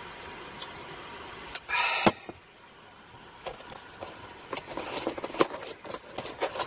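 A drink can set down on a wooden table with a sharp knock about two seconds in, just after a brief scraping noise. Then a cardboard takeout box is handled and opened, with rustling and many small taps and clicks.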